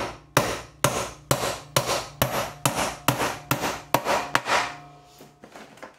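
Roughneck claw hammer driving a 75 mm round wire nail into painted softwood: about ten evenly paced blows, roughly two a second, each with a short ring. The blows stop about four and a half seconds in.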